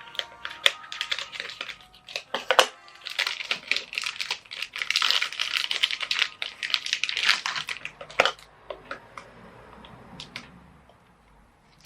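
Typing on a computer keyboard: rapid clicking keystrokes, densest in the middle and thinning to scattered clicks in the last few seconds.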